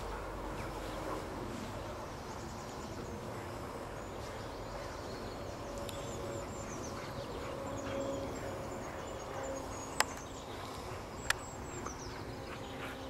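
Birds chirping and singing in quick, high notes over a steady outdoor background, with two sharp clicks a little over a second apart near the end.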